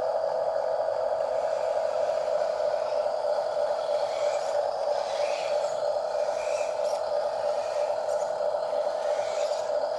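Small electric motor and gearbox of an RC rock crawler running at a steady speed, a constant mid-pitched whine, with faint scrapes of the tyres over ground.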